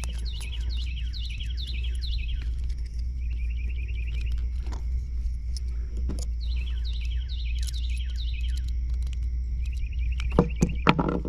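A songbird singing, three bouts of rapid, repeated falling chirps, over a steady low hum. A couple of sharp clicks in the middle and a few knocks near the end.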